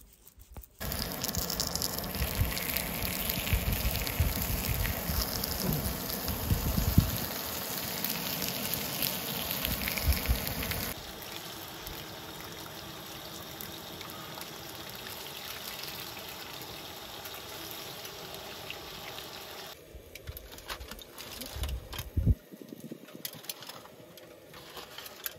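Steady hissing and sizzling of dough frying in hot oil on a propane-fired disc griddle. The sound changes abruptly about 11 seconds in and again near 20 seconds, and the first stretch is loudest, with a low rumble under the hiss.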